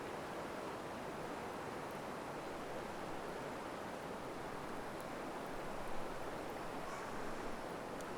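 Wood campfire burning, with a few faint small crackles in the second half, over a steady rushing background noise.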